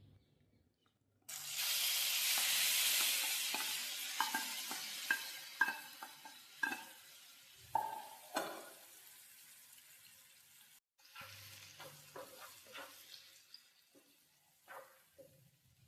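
Food hits hot oil in a pan with a sudden loud sizzle about a second in, which fades over the next several seconds while a spoon scrapes and clicks against the pan as it is stirred. After a brief break near the middle, a quieter sizzle and more stirring clicks go on.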